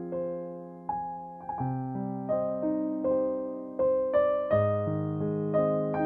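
Slow, gentle piano music: single notes and soft chords struck about once a second and left to ring over held bass notes.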